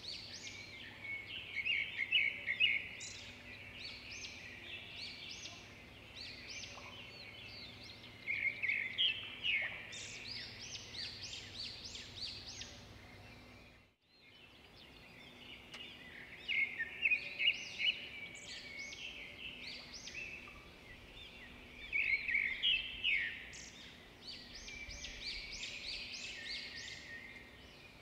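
Recorded birdsong: several small songbirds chirping and trilling in quick clusters, cutting out briefly about halfway through and then starting again.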